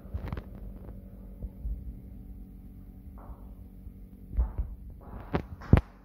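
A steady low hum with irregular dull thumps and knocks. Two sharp knocks near the end are the loudest.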